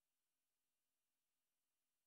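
Near silence: only a faint, steady noise floor, with no audible sound.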